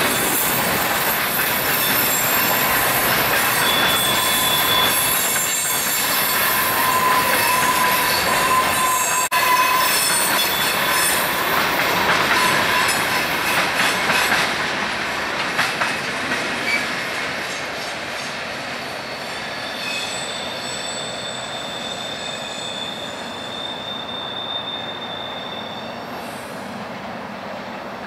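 Freight train of tank cars rolling past, steel wheels squealing in thin high tones over continuous clattering rumble. The sound fades gradually through the second half as the cars move away.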